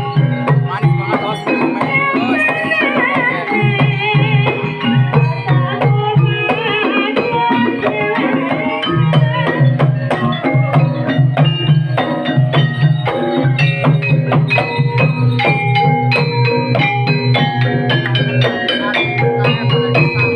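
Banyumasan gamelan accompaniment for ebeg: hand drums beating a steady rhythm under dense, struck metal-keyed notes, with a wavering melody line over it in the first few seconds.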